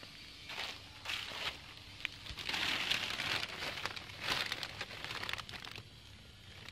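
Thin plastic sheeting crinkling and rustling in irregular bursts as it is handled and lifted, loudest in the middle and settling near the end.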